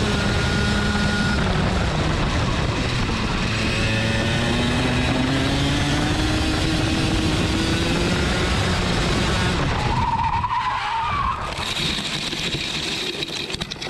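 Racing go-kart engine running at high revs, its pitch falling and rising through corners; about ten seconds in the tyres squeal in a skid as the engine note drops away, and the kart slides into a gravel trap with stones rattling and spraying against the bodywork.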